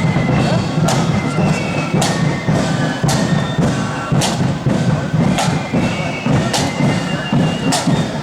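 Marching flute band playing: shrill flutes carry the tune over a heavy drum beat, with a crash about once a second.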